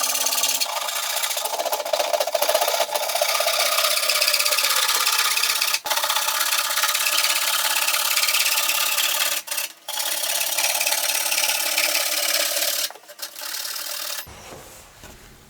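A hand tool scraping steadily on wood, with two brief pauses, stopping abruptly about fourteen seconds in.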